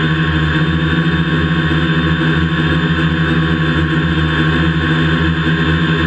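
DJI F450 quadcopter's electric motors and propellers running in flight, a steady multi-tone whine and buzz heard close up from the airframe.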